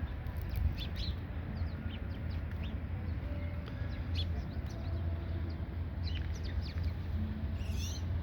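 Birds chirping: many short, quick high calls scattered throughout, with a denser flurry of calls near the end, over a steady low rumble.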